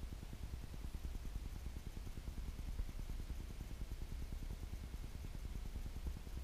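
Steady low rumble with a faint hiss of background room noise; no distinct event.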